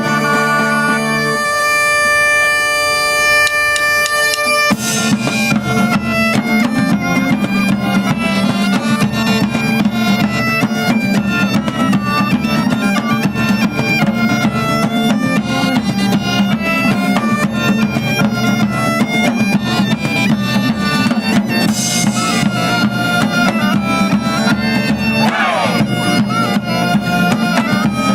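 Bagpipe music: a steady low drone under a melody on the chanter. Drums join in about five seconds in and keep a dense rhythm.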